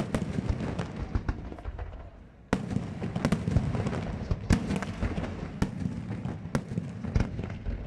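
Aerial fireworks display: shells bursting with sharp bangs over a dense, continuous crackle. A new volley starts sharply about two and a half seconds in, followed by several single louder bangs.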